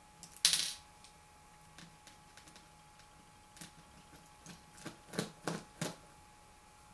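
Small clicks and taps of a precision screwdriver working the screws that hold a laptop's LCD panel to its frame. There is a brief, louder scrape about half a second in and a run of clicks near the end.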